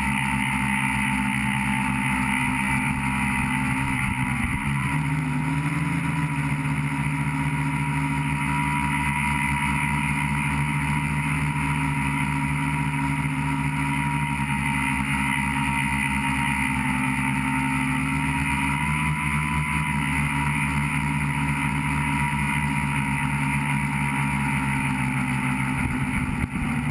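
Multirotor tricopter's electric motors and propellers, picked up by the onboard camera as a steady multi-toned whine. The pitch shifts slightly a few times as the throttle changes, with a brief dip near the end.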